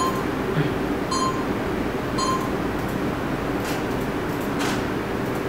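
Photo booth counting down to a test shot: three short electronic beeps about a second apart, then faint clicks in the second half as the picture is taken, over a steady background hum.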